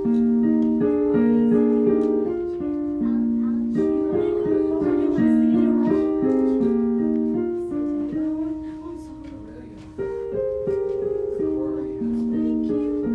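Piano playing a simple melody over chords. The music fades away towards about ten seconds in, then a new phrase starts sharply.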